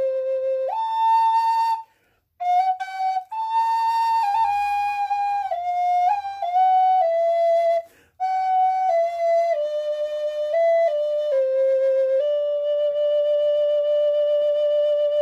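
Native American wooden flute played solo: a slow melody of held notes stepping up and down, with short pauses for breath about two and eight seconds in, settling into a long held note near the end.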